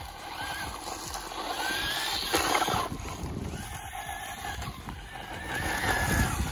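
RC desert truck's electric motor whining up and down with the throttle while its tyres spray and crunch over loose gravel and dirt, running on a 3S battery.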